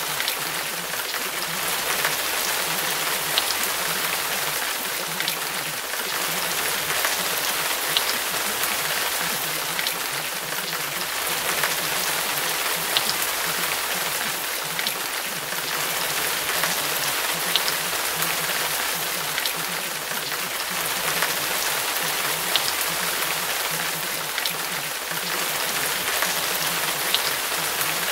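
Steady rain falling: an even hiss with scattered sharp drip ticks every second or two.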